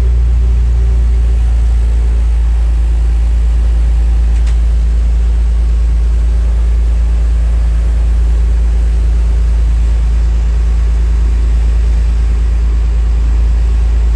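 Motorboat engine running steadily, a loud, even, low drone as heard on board the launch.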